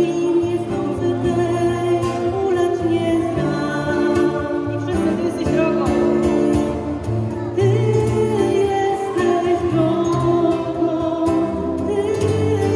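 A woman singing a slow song through a microphone, accompanied by a strummed acoustic guitar.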